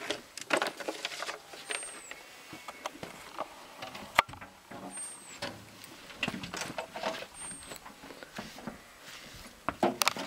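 Grooming brush strokes on a miniature pony's coat: irregular scratchy swishes with scattered knocks, and one sharp click about four seconds in. A short, high chirp recurs every two to three seconds.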